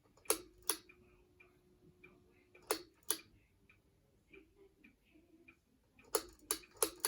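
Sharp switch clicks on an S.M.C A52 ceiling fan: two about a third of a second in, two near three seconds, and a quick run of four near the end. A steady low hum from the fan motor sounds between the first two pairs and again after the last clicks, with faint soft ticks repeating in between.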